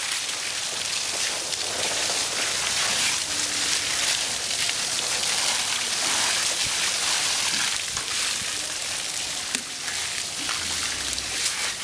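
Steady splashing of water from a garden hose pouring over an elephant's hide and running off onto wet ground as the elephant is bathed.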